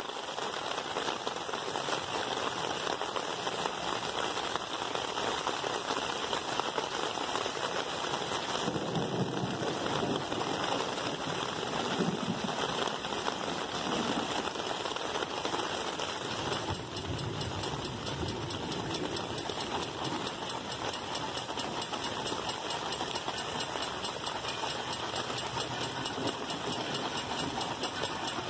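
Black River & Western 2-8-0 No. 60 steam locomotive running: a steady rushing hiss with a fast mechanical rattle.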